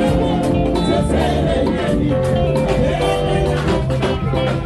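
Live band music with women singing into microphones, backed by electric guitar, drum kit and keyboard.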